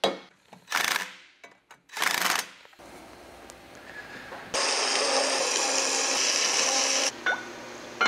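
A few dead-blow hammer blows knocking a cast-iron V-belt pulley onto a shaft. Later comes a loud, steady hissing machine noise that lasts about two and a half seconds and stops suddenly, followed near the end by a short burst and a sharp knock.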